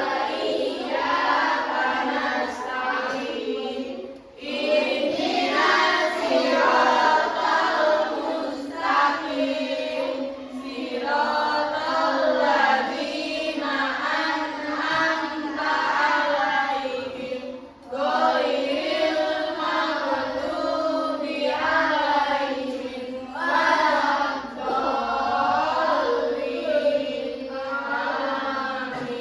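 A class of children singing a song together in unison, with two brief pauses between phrases.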